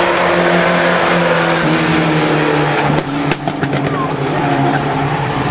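Several mini pickup race trucks running hard together on a paved oval, their engine notes overlapping and shifting in pitch as they work through a turn. A brief dip with a few short crackles about three seconds in.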